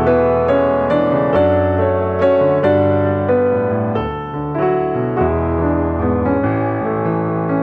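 Background music: piano playing a gentle melody over sustained chords.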